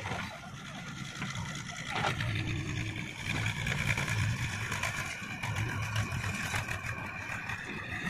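Diesel engines of a JCB 3DX backhoe loader and a farm tractor running under working load, a low rumble that swells and eases, with a steady high whine joining about three seconds in.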